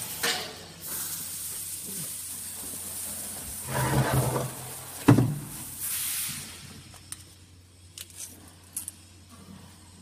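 A flattened steel oil drum clanking and scraping as it is handled, with one loud bang about five seconds in as it is set down on the concrete floor. A few light clicks follow near the end.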